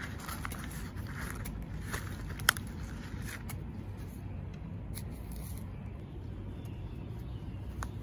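Dry leaf rustling and crackling as a hand handles a pile of dug-up cicada fungus specimens, mostly in the first half, with a few sharp ticks, the loudest about two and a half seconds in. A steady low rumble lies underneath.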